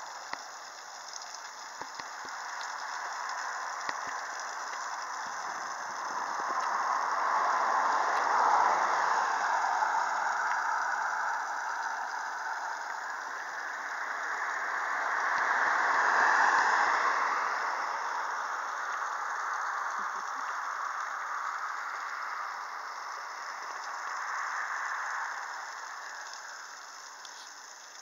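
Road and wind noise of a car driving along a highway: a steady rushing hiss that swells twice, about a third of the way in and again a little past halfway, then eases off near the end.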